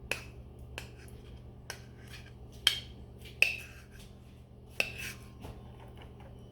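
Light clicks and clinks of small hard items, such as buttons and beads, knocking against a container as they are handled: a handful of separate sharp knocks, about a second apart.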